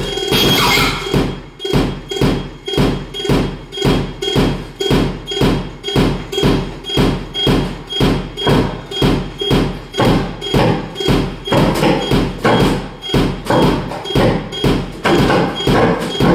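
Electroacoustic improvised music: a fast, regular percussive electronic pulse of about three thuds a second, with a thin steady high tone held above it.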